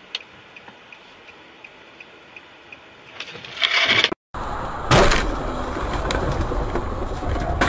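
Car dash-cam audio: faint, even ticking about three times a second, then a hiss that swells over about a second and cuts off abruptly. After a moment of silence, loud steady noise of a moving car, with a sharp bang about five seconds in.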